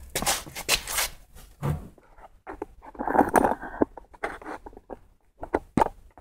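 A series of sharp clicks and scrapes close to the microphone, with a longer rustling burst about three seconds in and two more clicks near the end.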